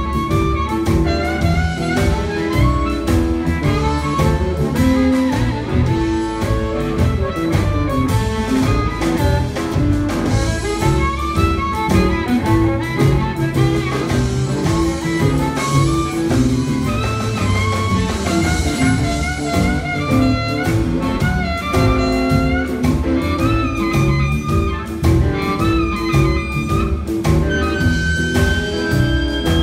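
Live blues band playing: a steady drum beat and bass line under guitar and a lead melody line with bent, wavering notes.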